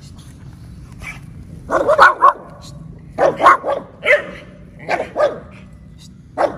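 Small dog barking repeatedly: sharp barks in quick clusters of two or three, about a dozen in all, from a fierce, aggressive dog.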